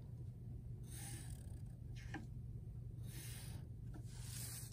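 Felt-tip marker drawn along a plastic ruler on paper: three soft scratchy strokes, each under a second, as straight lines are ruled.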